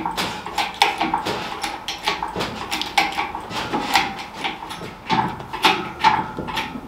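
Hydraulic engine crane being pumped by hand to lift a small vehicle: a fast run of clicks and knocks with squeaks and creaks as the load comes up.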